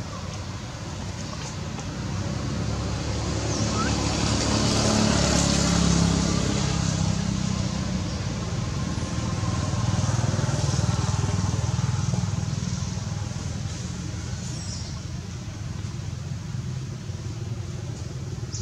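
Engines of passing road vehicles: one grows louder to a peak about six seconds in and eases off, then a second swells about ten seconds in and fades away toward the end.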